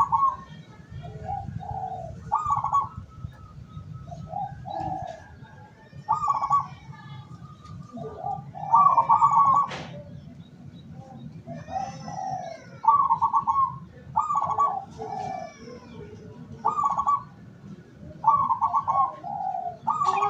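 Zebra doves (perkutut) cooing: a rolling trilled phrase dropping to lower coos, repeated about every one to two seconds. Faint high chirps sound in the background, and there is a single sharp click just before the middle.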